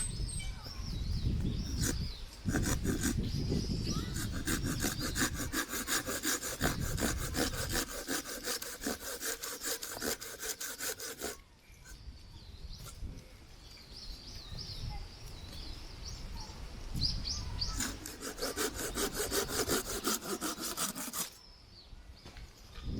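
Hand saw cutting wood in quick rhythmic strokes, in two bouts: a long one starting about two seconds in and a shorter one near the end. Wind rumbles on the microphone throughout.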